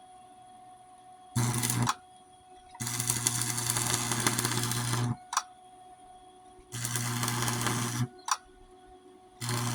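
Electric arc welder crackling in four separate runs, about half a second to two seconds each, with a low hum under each run, as a cracked steel Snapper mower deck is welded in short passes. A short sharp tick follows some of the runs.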